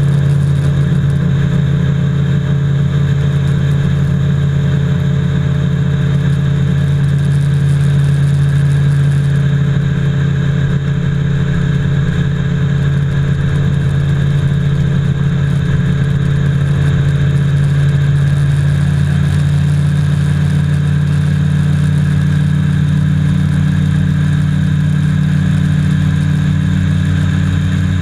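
Laser LTV performance boat's engine running steadily at speed, its drone holding an even pitch throughout.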